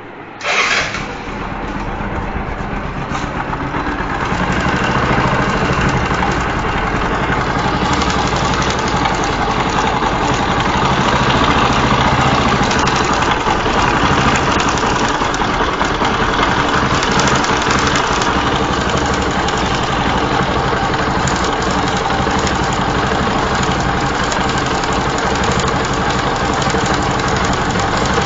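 Bajaj Pulsar 135 LS single-cylinder engine starting about half a second in, then idling with a clicking, rattling noise from a severely loose timing chain hitting the upper camshaft sprocket; the idle is rough.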